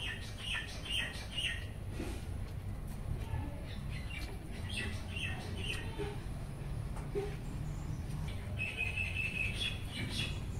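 Birds calling: short high squawking chirps in quick runs of about four, twice, then a rapid high trill for about a second near the end, over a steady low background rumble.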